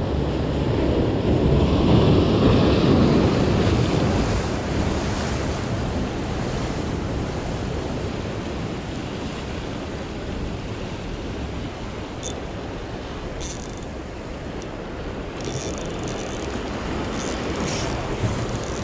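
Sea surf washing and breaking against rocks, swelling loudest about two seconds in and then settling into a steady wash, with wind buffeting the microphone.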